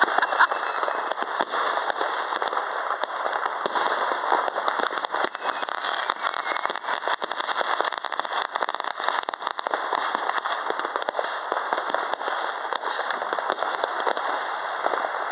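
Dense, continuous crackling and popping of many fireworks and firecrackers going off at once, with no single big bang standing out.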